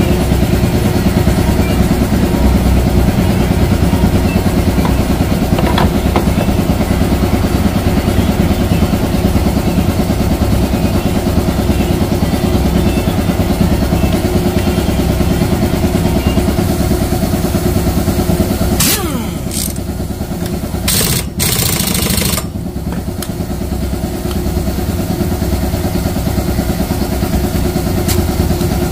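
Yamaha Ray ZR scooter's single-cylinder engine running steadily with its CVT cover off, belt and variator exposed. About two-thirds of the way through the engine note dips and falls a little, with a few sharp clicks, then steadies again.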